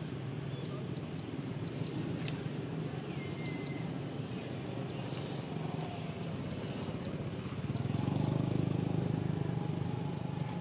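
Outdoor ambience: a steady low rumble like a distant engine, growing louder about eight seconds in, under short high bird chirps and rapid clicking.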